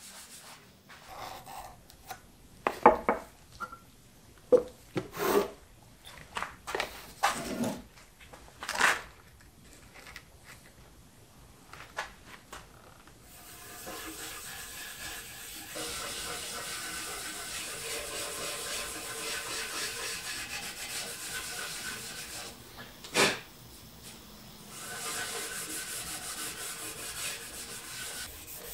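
Wooden boxes knocking and scraping on a workbench as they are handled, in scattered separate bumps. From about halfway, a steady rubbing as a gloved hand wipes finish over a wooden cabinet panel, broken once by a sharp knock.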